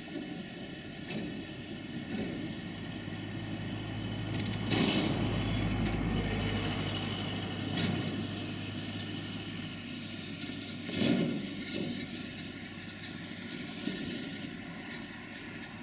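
Romanian 060-DA (LDE2100) diesel-electric locomotive, with its Sulzer 12-cylinder engine running, hauling a freight train slowly through a station. Wheels clack over rail joints and points every second or few, loudest about five and eleven seconds in.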